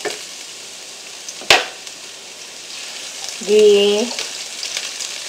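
Chopped onion sizzling in hot oil in a nonstick frying pan as it is stirred with a silicone spatula, freshly added to begin softening. One sharp knock sounds about a second and a half in.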